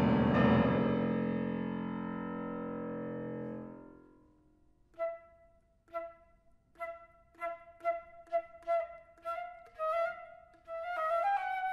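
A loud grand-piano chord rings and dies away over about four seconds. Then a flute plays short detached notes on a single pitch, coming closer and closer together, and ends on a longer note that edges upward in pitch.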